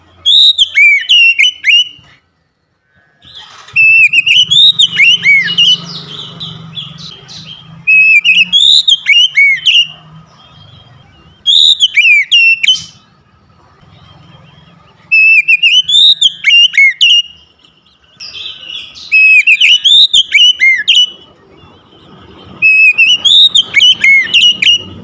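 Oriental magpie-robin (kacer) singing: about seven loud phrases of sweeping whistled notes that rise and fall, one phrase every three to four seconds with short pauses between.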